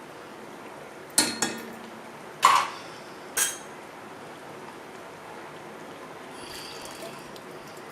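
Metal kitchen utensils knocking and clinking against a cooking pot, four sharp strikes in the first three and a half seconds, one ringing briefly.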